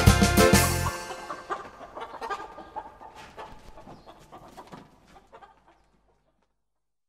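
Accordion-led folk band music stops on a final beat about a second in. Hens clucking follow and fade out over the next few seconds.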